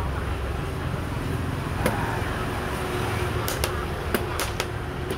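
Xiangqi pieces clacking down on a wooden board and chess-clock buttons being tapped in a fast game: a handful of sharp clicks, most of them in the second half. A steady low rumble runs underneath.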